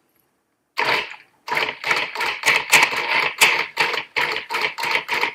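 Food processor motor running in rapid short pulses, whirring through a liquid egg, sugar and cream batter. It starts about a second in, stops briefly, then pulses about three times a second.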